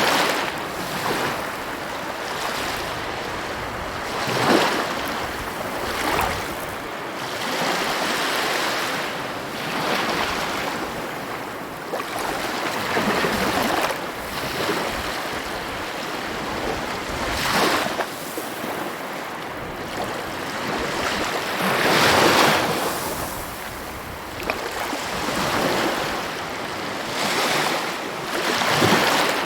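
Sea waves breaking and washing up on a shore, a continuous rush of surf that swells with each wave every few seconds.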